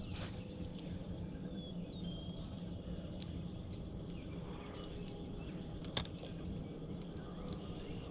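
Quiet outdoor ambience on the water: a steady low rumble with scattered small clicks, a short chirp about two seconds in, and one sharp click about six seconds in.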